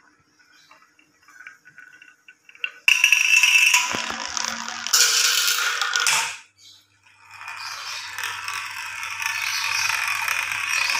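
A marble rolling through a marble run. There are faint clicks at first, then a sudden loud rattle from about three seconds in as it runs along the plastic channel track. The rattle stops briefly and then goes on again as a steady rolling rattle.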